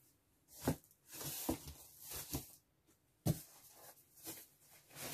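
Rustling and handling noises of clothes and packing being moved about, with a few light knocks; the sharpest knocks come just under a second in and about three seconds in.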